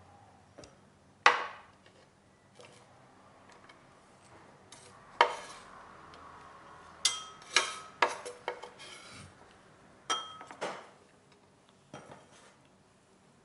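Kitchen knife tapping and scraping on a wooden cutting board, then clinking against a small glass bowl as chopped onion is scraped into it: a series of sharp clicks, several of them ringing briefly around the middle.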